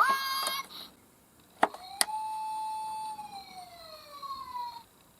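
Electronic siren from a toy emergency vehicle's sound module: a short tone at the start, two clicks, then one held siren tone that slides steadily down in pitch over a couple of seconds.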